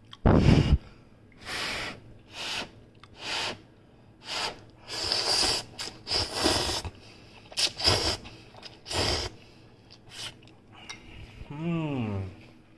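A person blowing on a chopstick-load of hot instant ramen noodles to cool them: short breathy puffs, about one a second, then a short falling "mm" near the end.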